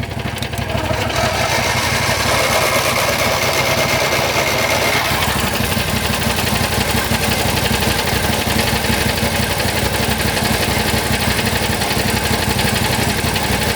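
A small engine idling steadily throughout. For roughly the first five seconds a starter motor cranks the warm John Deere GT225 over with a whine, and it does not catch: the tractor is hard-starting when hot.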